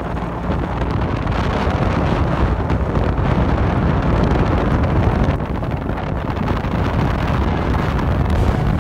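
Wind buffeting the microphone of a moving off-road vehicle, a steady rushing noise over a low rumble.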